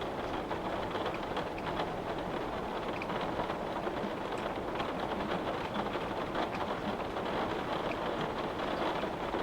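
Steady rain pattering on a window pane, a constant hiss of rainfall dotted with many small drop strikes on the glass.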